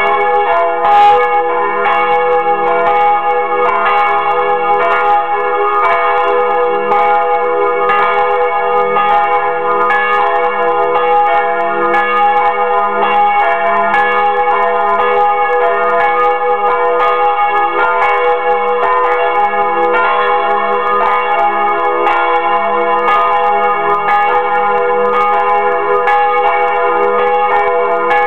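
Two swinging church bells, a large bell cast by Fremy and a small bell by Bachert, ringing together heard close up from inside the belfry: loud, overlapping clapper strikes in a steady rhythm over a continuous hum of ringing tones. It is the ringing-in of Sunday (Sonntag einläuten) on Saturday evening.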